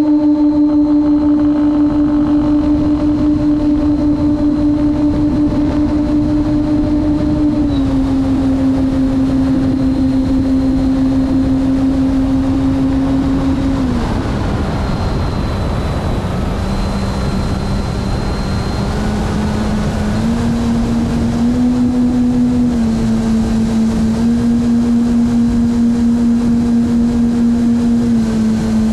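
Radio-controlled model airplane's motor and propeller droning steadily, heard from on board, with rushing air noise underneath. The pitch steps down slightly about 8 s in, drops further about 14 s in, then shifts up and down in small steps.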